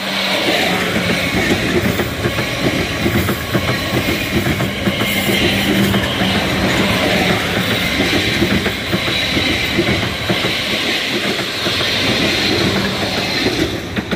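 Two coupled Class 444 Desiro third-rail electric multiple units passing close by, wheels clattering over the rail joints under a steady low hum. The sound drops away suddenly at the end as the last carriage clears.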